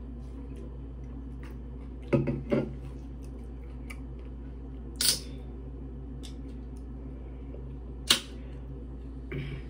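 Soda can being handled and opened: a few clicks, a short noisy burst about five seconds in, and a sharp snap of the pull tab about eight seconds in.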